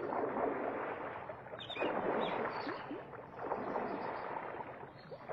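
Water swishing and gurgling around a thatch-roofed wooden country boat as it is pushed along with long bamboo poles. The rushing sound swells and eases every couple of seconds.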